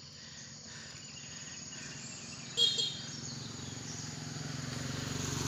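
Rural outdoor ambience with a steady insect hum. A short, high chirp comes about two and a half seconds in. A low engine drone, likely a passing motor vehicle, grows steadily louder toward the end.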